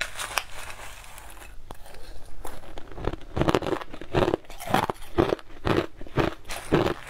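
Crushed ice being bitten and crunched close to the microphone, about two sharp crunches a second from around three seconds in. Before that, a plastic spoon scrapes and clicks through the ice in a glass bowl.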